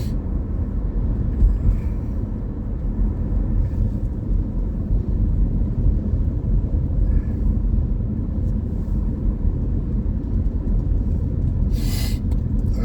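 Steady low rumble of a car driving, heard from inside the cabin, with road and wind noise. A brief hiss near the end.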